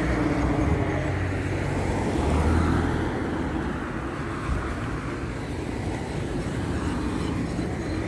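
Road traffic going by: a steady rumble of engines and tyres that swells as a vehicle passes about two to three seconds in, then eases.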